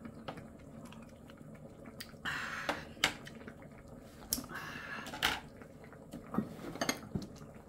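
Handling noises at the table: clicks and short rustles as a plastic food-storage container's snap-on lid is worked open about halfway through, among scattered clicks of tableware.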